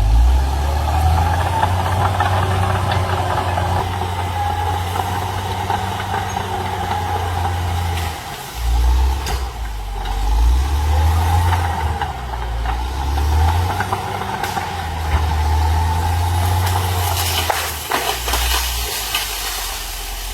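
Cat D6R XL crawler bulldozer's diesel engine running under changing load, swelling and easing every second or two, with a steady whine above it. A brief clatter of sharp cracks comes near the end.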